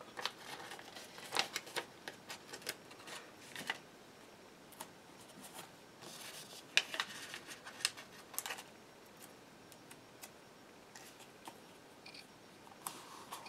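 Paper planner stickers being peeled from their sheet and pressed onto planner pages: faint light rustles and small clicks of paper handling, busiest in the first few seconds and again around the middle, with a quieter stretch before the end.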